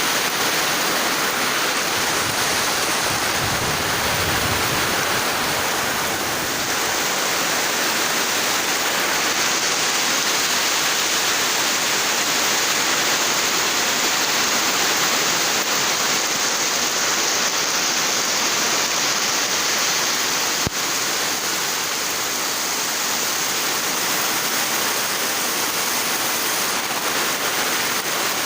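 Heavy rain pouring steadily in strong wind, a dense, even hiss. The low rumble of a wind gust comes a few seconds in, and a single sharp click about twenty seconds in.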